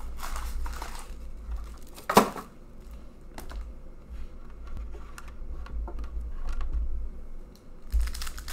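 Hockey card packaging being handled: the cardboard box and foil packs rustle and crinkle, with a sharp knock about two seconds in, the loudest sound, then light clicks and taps. Near the end a foil pack crinkles as it is opened.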